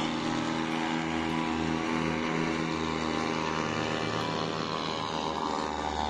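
Paramotor engine and propeller running at steady power, a constant even drone.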